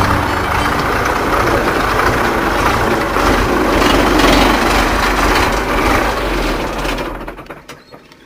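Engine of a home-built tractor-truck loaded with logs, running as it drives close past. The sound drops away sharply about seven seconds in.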